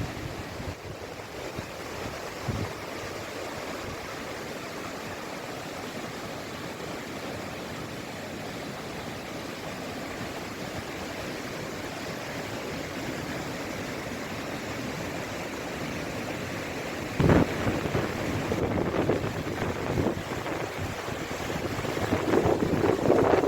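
Steady rushing of a swollen river in flood, with wind buffeting the microphone. A sudden thump comes about 17 seconds in, and the noise grows louder near the end.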